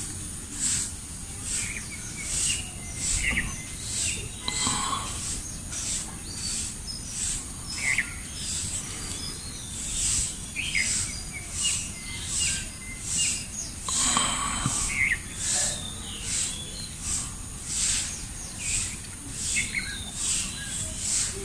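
Outdoor ambience of scattered bird chirps over a high-pitched pulsing that repeats about one and a half times a second.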